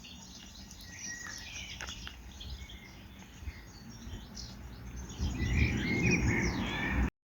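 Small birds chirping and singing, short high chirps scattered throughout. A low rumbling noise grows louder for the last two seconds, then the sound cuts off abruptly.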